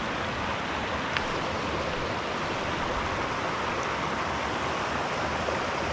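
Steady rushing of stream water, an even hiss that holds constant, with one faint click about a second in.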